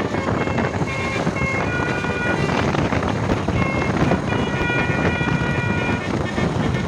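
Basuri telolet horn playing a tune of short held musical notes in several phrases, over loud wind and traffic noise.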